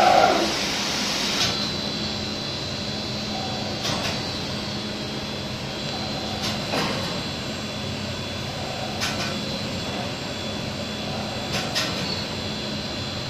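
Fabric printing machinery running with a steady hum and a faint high whine, broken by a few sharp clicks.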